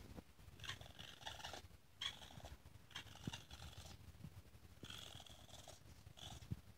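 Baby raccoon making several short, quiet, high calls in a row.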